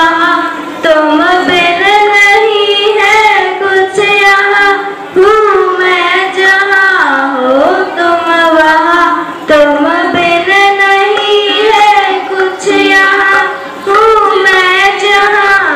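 A group of schoolgirls singing a song together, the melody rising and falling in phrases with brief breaths between them.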